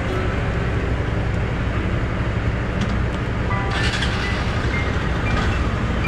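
Riding noise from a Hero Xpulse 200 motorcycle on the road: steady low wind rumble on the microphone mixed with engine and tyre noise. A little past the middle a brighter hiss joins in.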